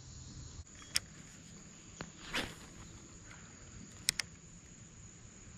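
Faint steady drone of insects, with several light clicks and a short swish from a spinning rod and reel being handled; two quick clicks come about four seconds in.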